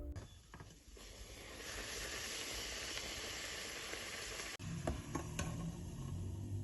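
Food sizzling as it fries in a pan. The sizzle swells about a second and a half in and cuts off abruptly just past the middle, followed by a few light clicks and knocks.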